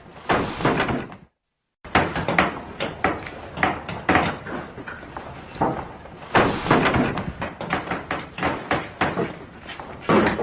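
Carpentry workshop ambience: irregular knocks, thuds and clatter of wood and tools, broken about a second in by a half-second cut to dead silence.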